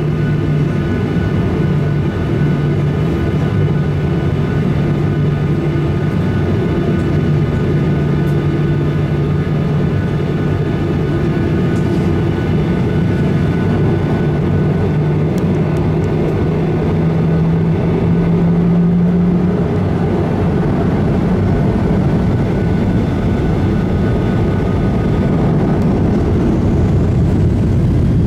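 Jet airliner cabin noise heard from a window seat over the wing as the plane taxis: a steady engine rumble and hum. Near the end a faint rising whine comes in.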